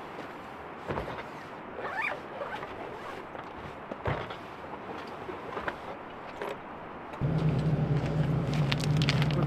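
Gear being handled at a pickup's tailgate: rustling, a few clicks and knocks, and short zipper-like rasps. About seven seconds in, a steady low hum starts and keeps going: the Toyota Tacoma's engine idling.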